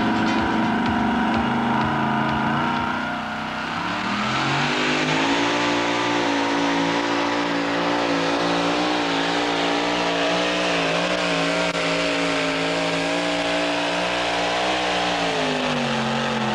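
Two-wheel-drive pulling truck's engine running hard under load on a pull. The revs climb about four seconds in, hold high and steady, then sag slightly near the end.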